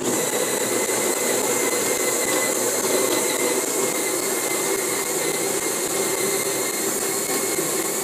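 Electric coffee grinder switching on abruptly and running steadily: a loud motor whir with a steady high tone, grinding beans for espresso.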